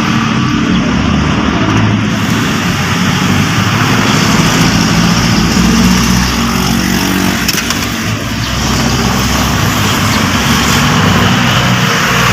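A vehicle engine running steadily, with a slight dip in level about two-thirds of the way in.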